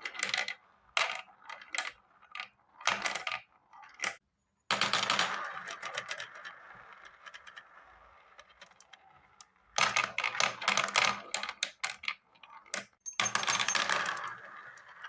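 Marbles rolling and clattering down a marble run: bursts of rapid clicking and rattling, several in a row with short quieter gaps between them.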